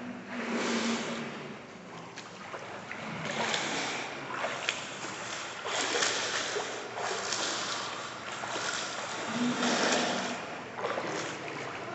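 Pool water splashing and churning as a swimmer kicks her legs hard at the surface, face down over a foam noodle; the splashing rises and falls in several surges.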